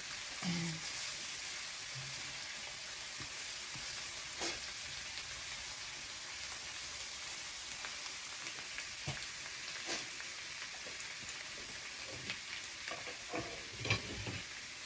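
Minced garlic frying in oil in a wok, a steady sizzle as it browns, with a few sharp taps and scrapes of a spatula stirring it against the pan.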